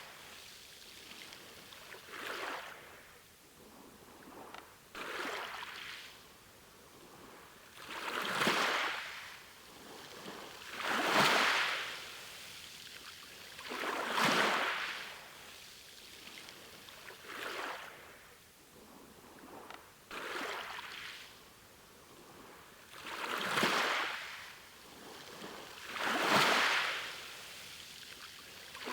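Sea waves washing in, one swell of surf hiss rising and fading about every three seconds, some stronger than others.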